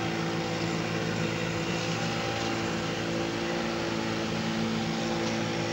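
Outboard motor of a small wooden fishing boat running steadily on the water, a constant engine hum over the hiss of the sea.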